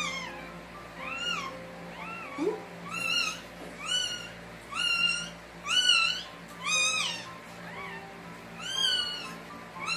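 Newborn Shih Tzu puppy crying in short, high-pitched mewing squeals, each rising and falling, about one a second. This is the cry the newborn is being rubbed and suctioned to give, the sign that it is breathing.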